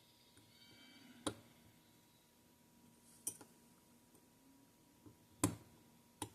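Small sharp clicks of a metal watchmaker's tool against the watch movement as the hands are pressed on, four in all, roughly two seconds apart with the last coming quickly after the loudest.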